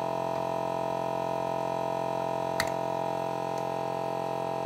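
Steady electrical hum made of several fixed tones, with a single light click a little past halfway.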